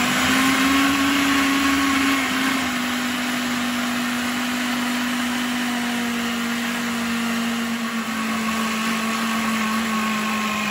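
Countertop jug blender running steadily, blending a thick cornmeal pancake batter. Its motor note drops slightly about two seconds in.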